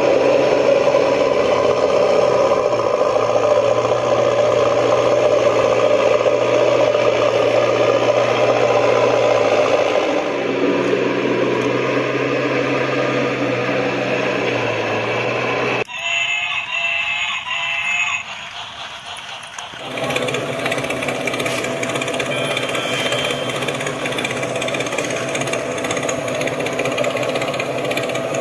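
Small battery-powered toy vehicle motors and plastic gearboxes whirring and rattling steadily. About halfway through the sound changes abruptly, with a couple of seconds of warbling electronic tones, then steady whirring again.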